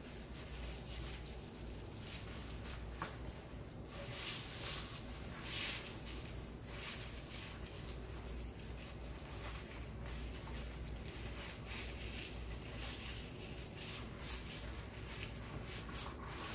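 Irregular soft rustling and rubbing of wired ribbon and deco mesh as hands tuck and shift them within a swag, with a few louder swishes.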